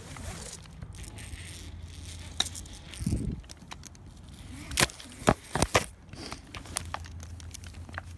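Fir branches and needles rustling and crackling against a tree climber as he rappels down through the boughs. There is a low thump about three seconds in, then a quick run of sharp clicks about five seconds in.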